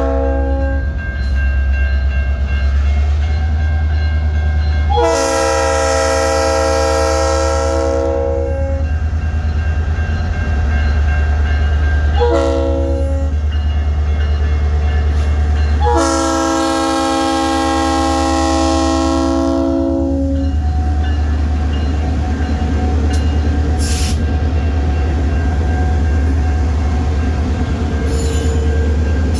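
Locomotive's multi-chime air horn sounding a crossing pattern over a steady low rumble from the train. The tail of one blast is followed by a long blast, a short blast and a final long blast, the end of a long-long-short-long grade-crossing signal.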